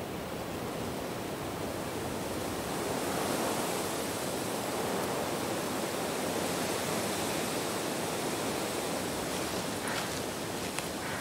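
Steady rushing wind in the forest trees, swelling a little a few seconds in, with a few faint rustles near the end.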